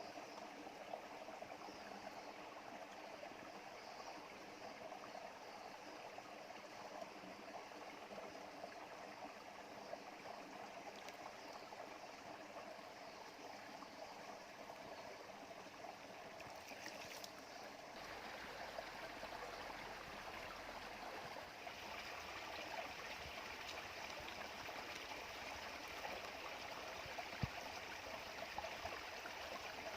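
Stream water running steadily, a little louder from about eighteen seconds in.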